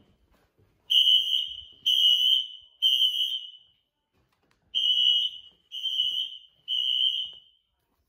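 Building fire alarm sounding the temporal-three evacuation pattern: two sets of three high-pitched beeps, about one a second, with a pause after each set.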